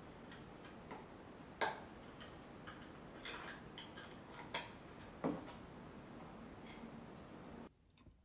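Scattered light clicks and taps of small fixings and laser-cut MDF jig parts being handled and fitted together by hand, about nine separate knocks spread irregularly.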